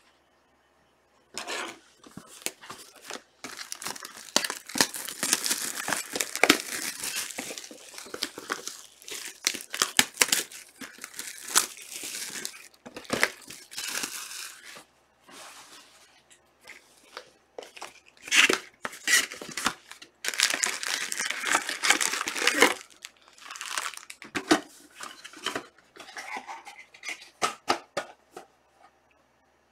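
Trading-card pack wrappers, 2020 Panini Select soccer packs, being torn open and crinkled by hand, with cards and plastic handled in between. It comes in irregular bursts of tearing and rustling with sharp little crackles, beginning about a second and a half in and pausing briefly a couple of times.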